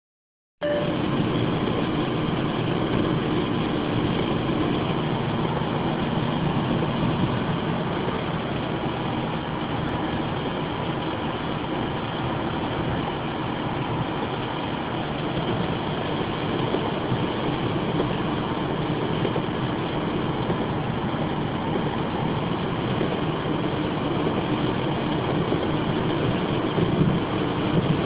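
Steady cabin noise of a car driving at speed on a wet road: tyre hiss on the wet surface and engine hum. It starts about half a second in.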